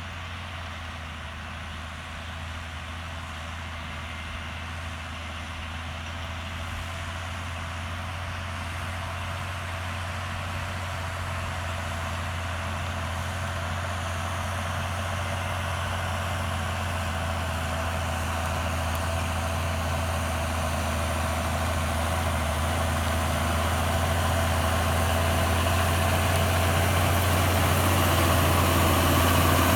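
John Deere 6930 tractor's six-cylinder diesel engine running steadily under load while ploughing, growing steadily louder as it draws nearer.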